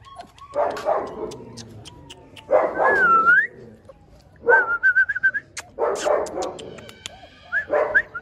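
Dogs barking in about five short bursts, with high wavering whines and short yelps between them.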